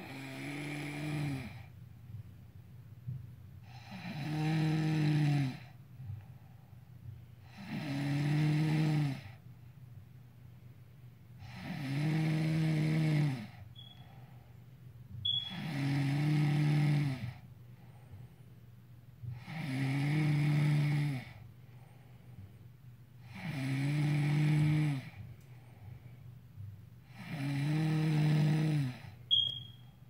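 A woman snoring. Each snore is pitched, lasts about a second and a half, and comes back every four seconds or so, eight times, with quieter breathing in between.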